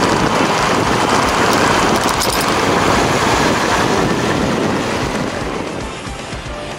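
Wind rushing over the helmet or action-camera microphone while riding a Honda CB400 Super Four, with the bike's inline-four engine and road noise running underneath. The rush eases a little near the end.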